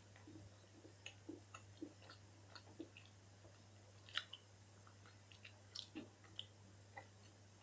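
Faint mouth sounds of someone chewing a piece of chocolate orange: soft, irregular clicks and smacks, over a steady low hum.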